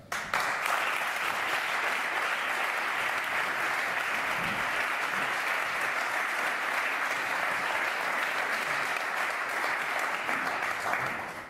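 Audience applauding steadily, starting suddenly and dying away near the end.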